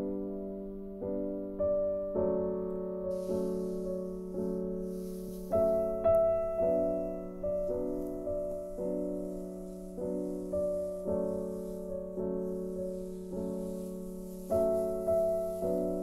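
Background piano music: a slow melody, a new note or chord struck about every half second and left to die away.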